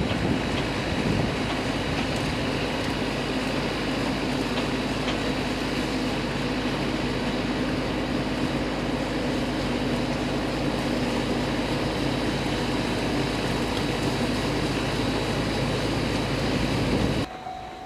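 Omi Railway 820 series 'akaden' electric train, a resistance-controlled ex-Seibu two-car set, running along the track and moving away, heard as a steady rumbling wash of noise. The sound cuts off suddenly near the end.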